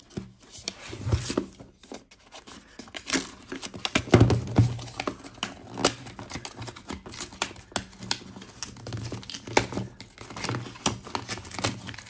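Printed paper packaging sleeve being peeled and torn off a hard plastic toy case, crinkling and tearing in irregular spurts, with many sharp clicks as the case is handled.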